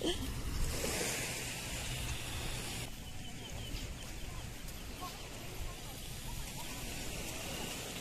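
Small waves lapping and washing on a sandy shore, a steady hiss. About three seconds in it gives way to a quieter steady outdoor ambience with a few faint high chirps.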